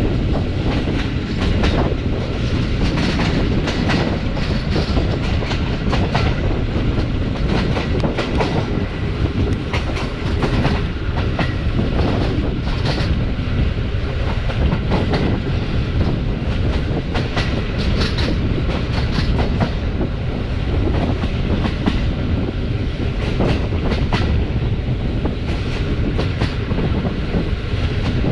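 Passenger train running along the line: steel wheels clacking and knocking over the rail joints above a steady rumble of the running gear.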